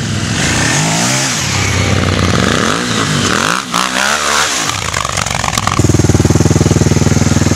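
Motorcycle engines revving as the bikes pull away and ride past, the pitch sweeping up and down several times; an orange KTM 950 Adventure V-twin passes close by. About six seconds in the sound cuts to a single motorcycle engine running steadily at low revs with an even pulsing beat, close up.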